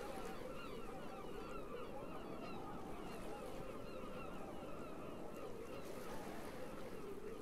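A flock of birds calling continuously, many short overlapping calls, over a steady low rumble.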